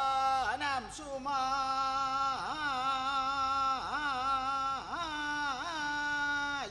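A single voice chanting a Koodiyattam verse in long held notes, each broken by quick downward dips and swoops in pitch, with no drumming under it.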